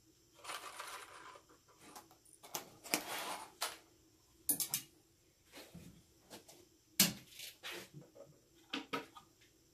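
Small screws rattling and a clear plastic package crinkling as they are handled, then a few sharp clicks and knocks, the loudest about seven seconds in, as a wooden wall bracket is set against drywall.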